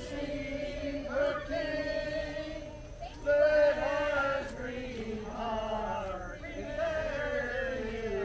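Carolers singing a Christmas carol in slow, drawn-out phrases, their voices holding long notes.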